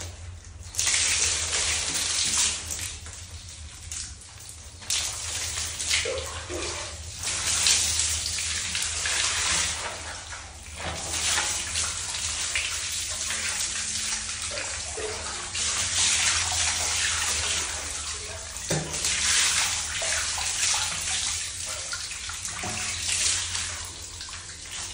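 Running water pouring over a soapy small dog and splashing onto a tiled floor as its coat is rinsed. It comes in long surges of several seconds with brief breaks between them.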